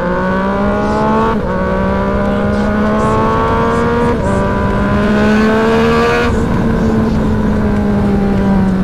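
Sport motorcycle engine accelerating hard through the gears. Its pitch climbs, drops sharply at three quick upshifts about a second and a half, four seconds and six seconds in, then holds steady and eases slightly lower near the end.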